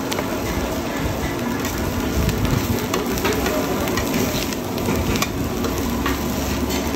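Egg and oysters sizzling in oil on a wide flat pan as oyster omelette fries, with a metal spatula scraping and clicking against the pan now and then.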